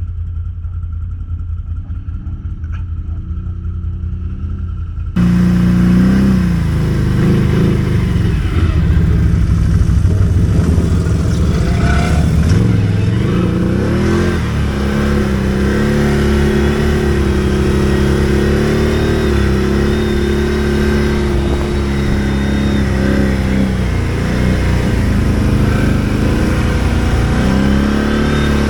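ATV engine running while riding over rough terrain, its pitch rising and falling with the throttle. About five seconds in the sound switches abruptly from a duller, quieter engine to a louder, fuller one.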